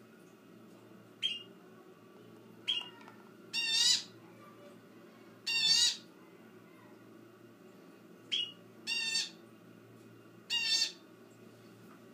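Sunbird calling in a cage: three short sharp chips and four harsher, buzzy calls of about half a second each, spaced a second or two apart.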